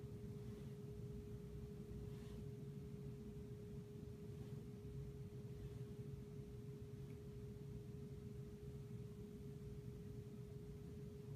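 A faint steady hum at one unchanging pitch, over a low rumble of room noise.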